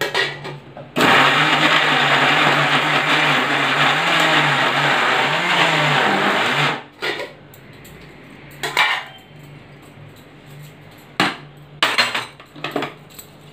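Electric mixer grinder with a steel jar running for about six seconds, grinding boneless chicken pieces to a smooth mince; its hum wavers in pitch near the end before it stops abruptly. A few short knocks and clatters follow as the jar is handled.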